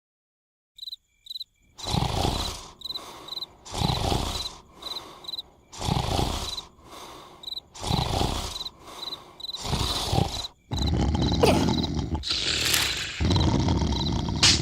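Cartoon larva character snoring: a snore about every two seconds, starting about two seconds in, over steady cricket chirps. Near the end the snoring grows louder and more continuous.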